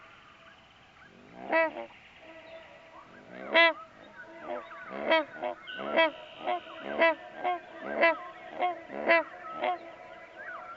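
Goose honks used as a pterosaur (Quetzalcoatlus) creature sound effect: a run of loud honking calls, two spaced single calls and then about two a second through the second half, over a fainter layer of overlapping honks.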